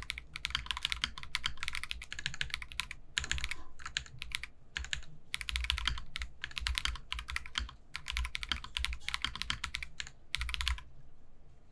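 Typing on an Akko Cinnamoroll 20th Anniversary 5075B Plus mechanical keyboard with Akko CS Creamy Yellow linear switches. Fast runs of keystrokes come in bursts with short pauses and stop about a second before the end.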